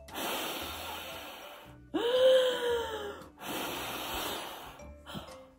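A person blowing hard in long, breathy gusts, about two of them, with a pitched, voiced 'whoo' between them, like wind being blown away.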